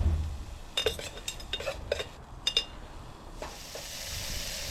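Metal utensil clinking several times against a billy can holding chorizo, followed about three and a half seconds in by a steady sizzle as the chorizo fries in its own oil over the rocket stove.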